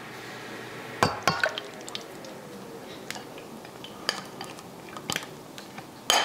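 Glaze being emptied from a glass mixing bowl into a saucepan: a silicone spatula scraping the bowl, with a cluster of sharp clinks about a second in, then single clinks of the glass bowl against the pan about once a second and a louder knock at the end.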